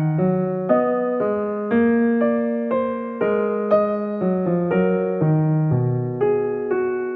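Background piano music, a gentle electric-piano melody with a new note about every half second.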